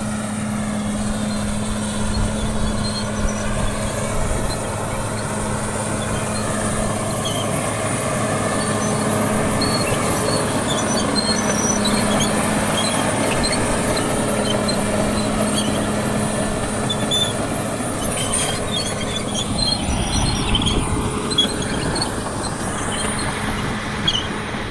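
Caterpillar D6R crawler bulldozer running steadily under light load while dozing, its diesel engine holding an even hum, with scattered faint high squeaks. The engine pitch rises over the last few seconds.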